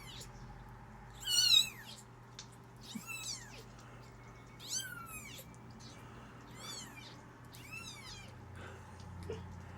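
Very young kittens mewing: about six thin, high-pitched mews, each falling in pitch, the loudest about a second and a half in.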